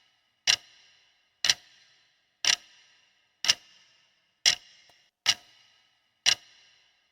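Clock-tick sound effect of a quiz countdown timer: seven sharp ticks, about one a second, each with a short ringing tail.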